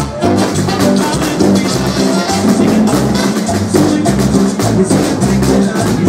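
Loud live Latin dance band music with drum kit, bass line and hand percussion in a steady rhythm.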